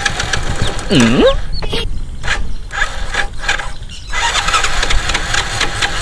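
Hero Passion Pro motorcycle's single-cylinder four-stroke engine running as the rider works the throttle, with a short swooping sound about a second in.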